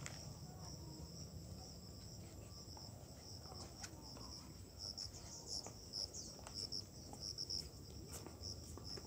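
Insects calling in the vegetation: a steady, high-pitched trill with pulsed chirps that grow louder and come more often from about four seconds in.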